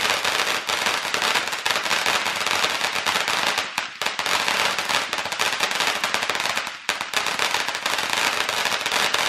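Ground fountain firework spraying sparks with a dense, continuous crackle, dipping briefly twice.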